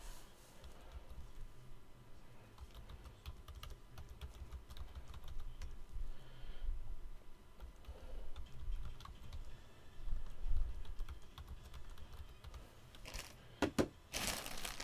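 Typing on a computer keyboard: a steady patter of key clicks. Near the end come two louder crinkles of plastic packaging as a bagged jersey is moved across the table.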